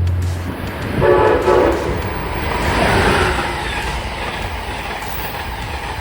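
Train horn sounding one short blast about a second in, followed by the rushing noise of a passing train that swells and then slowly fades.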